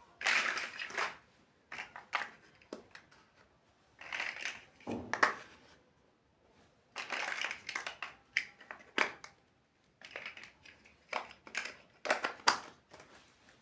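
Plastic building bricks being handled and pressed together: clusters of clicks and short rattling bursts every second or two, with brief pauses between.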